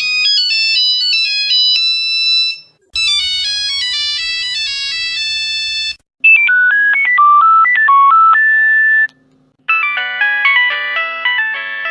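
Nokia mobile phone ringtones: short melodies of electronic tones, switching to a differently voiced melody about every three seconds, with brief gaps between them.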